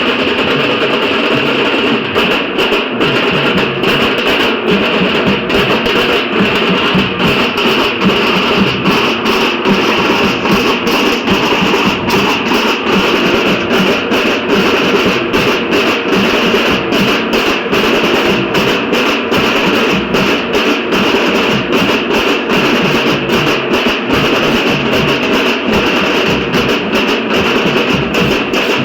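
Dhol-tasha ensemble playing: big barrel dhol drums and tasha drums beating a loud, steady, continuous rhythm.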